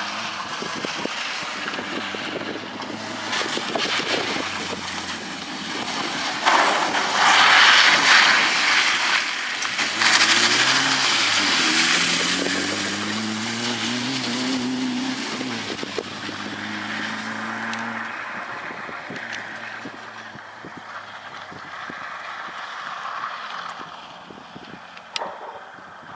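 Peugeot 205 rally car's engine revving up and down repeatedly as it is driven hard on a wet gravel track, with a loud rushing hiss of tyres and spray for a few seconds. Toward the end the engine fades as the car draws away.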